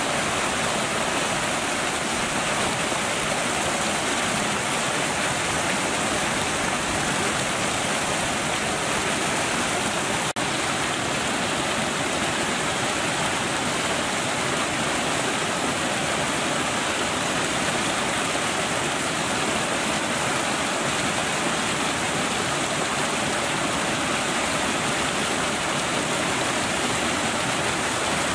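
Water pouring over a small rocky spillway into a foaming pool: a steady, even rush of falling water.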